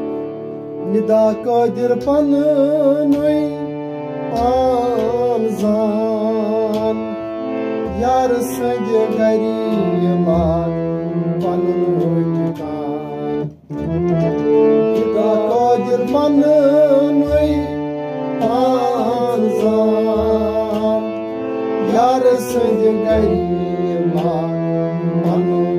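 Harmonium playing held chords and melody while a man sings in long, wavering phrases, with a clay pot drum beaten by hand in low thumps underneath.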